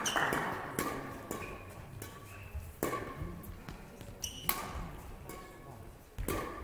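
Shoe soles squeaking on a sports-hall court floor between badminton rallies, with scattered sharp knocks echoing in the hall; the loudest knocks come about three, four and a half and six seconds in.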